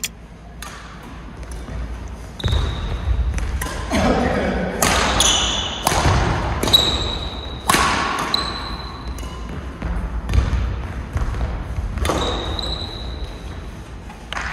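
Indoor badminton rally: sharp racket hits on the shuttlecock, with short high squeaks of shoes on the court floor.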